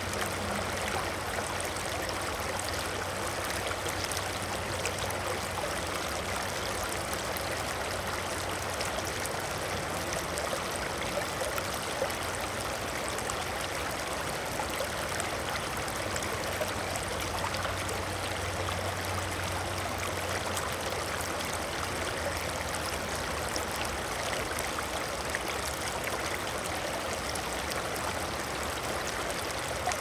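Water flowing steadily in a continuous, even rush, with a low hum underneath that fades and swells.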